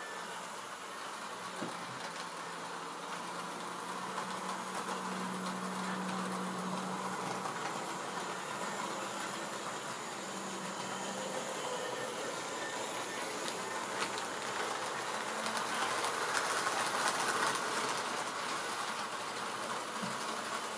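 Model train running on the layout's track: a steady motor whirr with wheels clicking over the rail joints. It grows louder for a few seconds near the end, with an occasional sharp click.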